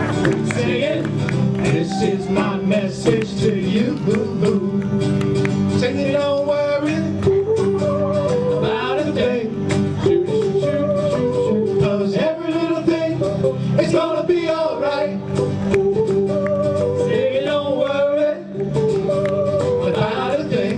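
Live band music with acoustic guitar, and men singing into microphones.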